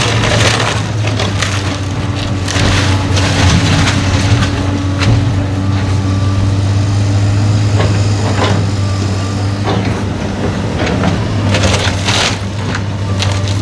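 A wooden house being torn down by heavy machinery: timber cracking, splintering and crashing again and again over the steady low drone of the machine's engine.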